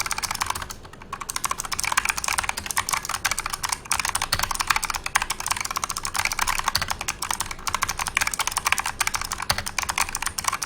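Fast typing on a Razer Huntsman Mini keyboard with clicky optical switches: a dense run of crisp, loud key clicks, with a brief pause about a second in.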